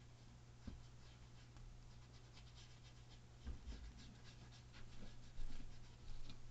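Faint scratchy dabs and strokes of a small paintbrush on canvas, a quick irregular run of light ticks, with a few soft bumps and a steady low hum underneath.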